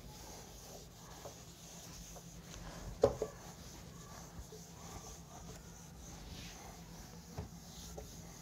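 Whiteboard duster rubbing and scuffing across a whiteboard as the board is wiped clean, with a sharp double knock about three seconds in.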